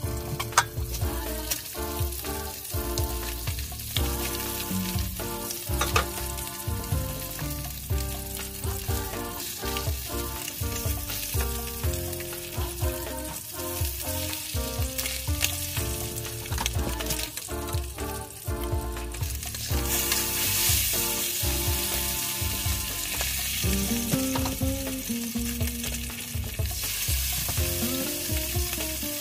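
Fish fillets frying in hot oil in a nonstick pan: a steady sizzle, turned now and then with a spatula. The sizzle grows louder about two-thirds of the way through, as fresh salmon fillets go into the oil.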